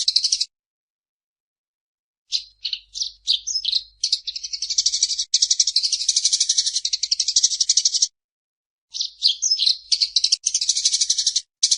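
Eurasian tree sparrow chattering: rapid, high-pitched trilled chirps in long bursts, breaking off to silence about half a second in and again about eight seconds in.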